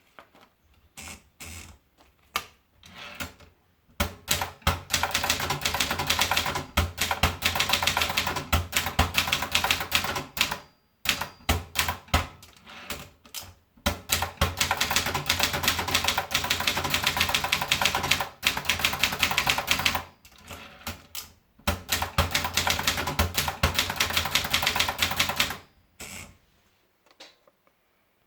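Brother Deluxe 220 manual portable typewriter being typed on. A few scattered keystrokes, then three runs of fast typing lasting several seconds each, separated by short pauses with only a few strokes.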